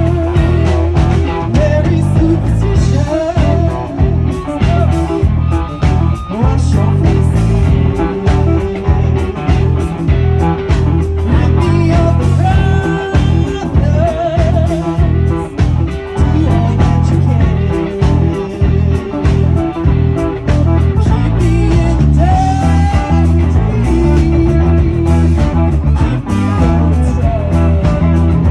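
Live rock band playing electric guitars over drums with a steady beat.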